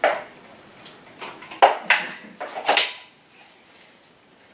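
A run of about five sharp plastic clicks and knocks within the first three seconds as car-seat adapters are handled and fitted onto the seat mounts of a Cybex Mios stroller frame.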